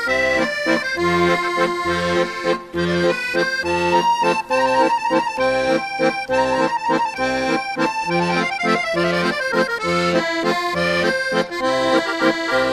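Background music: an instrumental tune over a steady bass beat.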